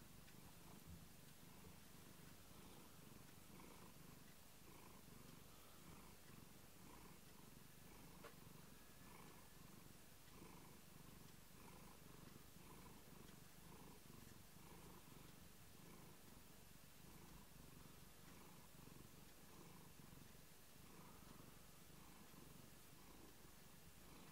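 A cat purring softly and steadily while being stroked on the head, the purr swelling and fading with its breaths roughly once a second.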